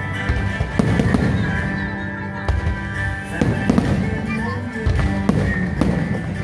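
Aerial firework shells bursting overhead: several booms and crackles spaced a second or more apart, over loud music playing throughout.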